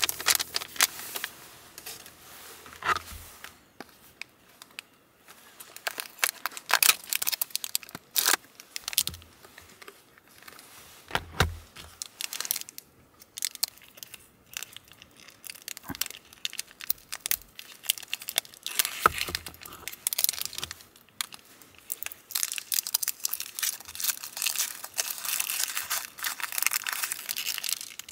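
Plastic packaging and a foil wrapper crinkling and tearing by hand as a small koban-shaped sweet is taken out and unwrapped. The crackles come in scattered clusters and grow denser near the end.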